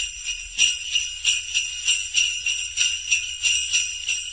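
Jingle bells shaken in an even rhythm, about three shakes a second.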